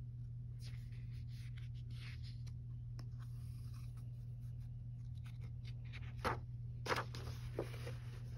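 Paper rustling as coloring-book pages are handled and turned, in several soft swishes, with two sharper paper slaps near the end as a page is flipped over. A steady low electrical hum runs underneath.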